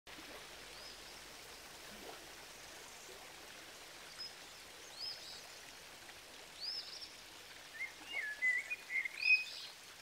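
Small rocky creek flowing steadily, with birds calling over it: a short arched call repeated every second or two, and a quick run of chirps near the end.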